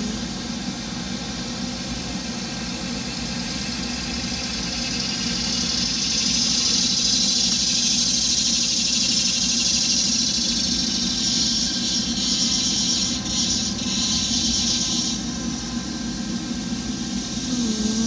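A machine running with a steady low hum. A higher hiss swells from about five seconds in and fades again near fifteen seconds.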